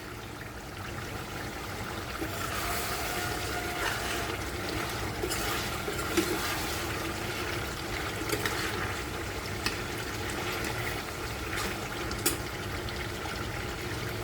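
Pork curry in a pot on the stove, giving a steady watery hiss of liquid cooking, with a few light utensil clicks.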